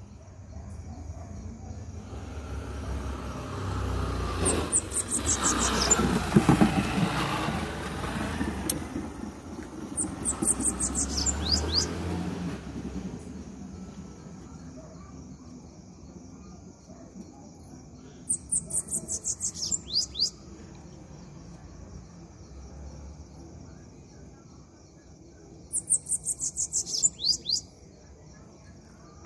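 Caged bananaquit singing: four short bursts of rapid, high trilled notes, each about one to two seconds long, spaced several seconds apart. A motor vehicle passes during the first dozen seconds, growing louder and then fading, while a steady insect trill runs behind.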